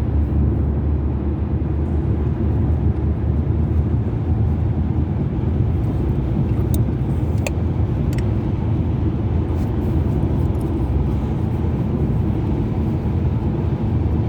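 Steady low rumble of a car on the move, engine and road noise heard from inside the cabin, with a few faint clicks about halfway through.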